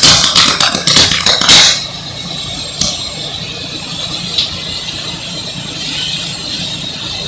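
Rapid, loud crackling and popping, identified as coming from an electrical transformer, stops abruptly about a second and a half in. A steady low rumbling noise continues after it.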